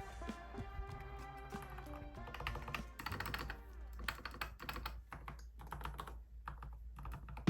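Irregular clicks and taps from a Keychron K10 Pro mechanical keyboard being handled and pressed, busiest in the second half, over background music.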